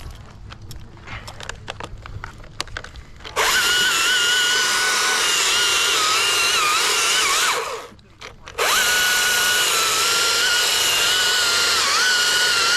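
Chainsaw cutting wood in two runs, its pitch dipping and wavering under load. It stops completely for about half a second in between. Light scattered clicks and cracks come before the first cut.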